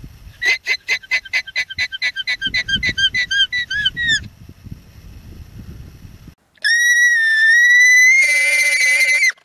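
Alpaca calls: a fast run of short, high-pitched squeals, about five a second, for some three and a half seconds. After a pause comes one long high call held for nearly three seconds that turns harsher near its end and stops abruptly.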